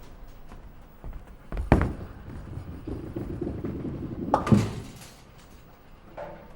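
Bowling shot: the ball thuds down, rolls with a steady rumble for a couple of seconds, then crashes into the pins with a loud clatter, followed by a few smaller knocks of pins settling.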